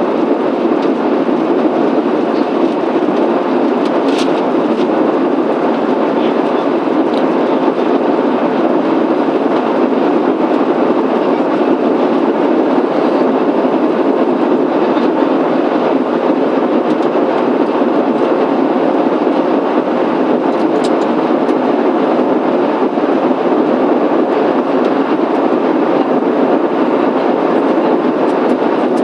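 Steady cabin noise inside a Boeing 737-800 airliner: an even, unbroken rush with a faint steady hum, and a small click about four seconds in.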